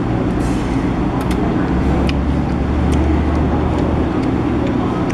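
Steady low rumble of background road traffic, with a few light clicks of chopsticks against a small dish.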